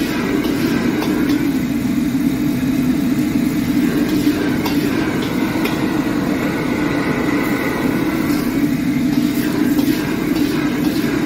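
Gas wok burner running at high flame with a steady, loud rushing noise, while a metal ladle scrapes and clinks against the wok as fried rice is stirred and tossed.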